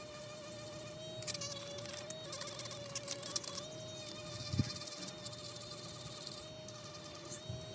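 A small high-speed electric motor whining at a steady pitch, with several stretches of hissing scratchy noise layered over it and a single dull knock about halfway through.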